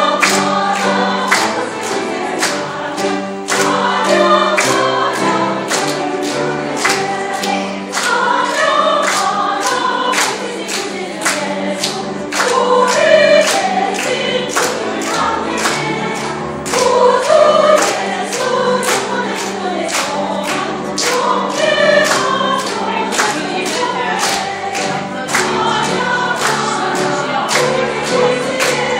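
Women's choir singing a church song, with the congregation clapping along in a steady beat of about two claps a second.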